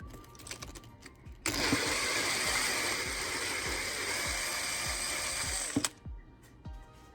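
Power drill fitted with a T17 Torx bit running steadily for about four seconds, starting about one and a half seconds in and stopping abruptly, backing out a screw that holds a leaf blower's gas tank. Background music with a steady beat plays throughout.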